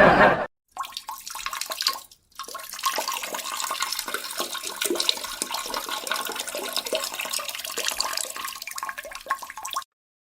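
Running water with many small splashes and clicks, stopping briefly about two seconds in and cutting off suddenly near the end.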